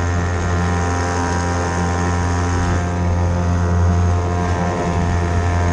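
Hangkai 3.5 hp outboard motor running steadily under way, a constant low hum with a buzzy edge.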